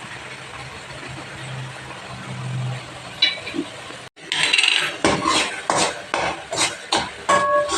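Metal spoon stirring thick sago kesari in a pan, scraping and clinking against the metal. A low steady hiss fills the first few seconds; after about four seconds the clinks come quickly, a few a second, one of them ringing briefly near the end.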